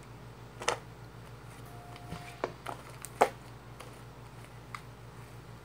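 Soft homemade slime being squeezed and pressed by hand, giving a few short sticky squelches and pops, the sharpest a little after three seconds in.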